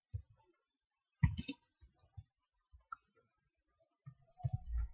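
Computer keyboard typing: faint, irregular key clicks, a few at a time, with a quicker run of keystrokes near the end.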